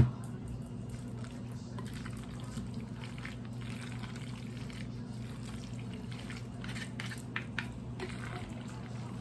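A sharp knock, then macaroni salad being stirred with mayonnaise in a bowl: faint wet squishing with scattered small clicks and scrapes, over a steady low hum.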